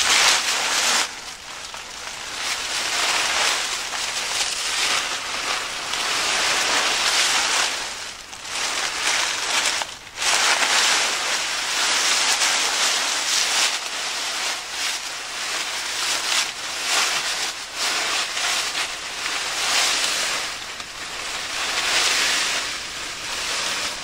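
Dry fallen leaves rustling and crunching as a person crawls through a thick layer of them: a continuous rough crackle that swells and fades, with brief lulls about eight and ten seconds in.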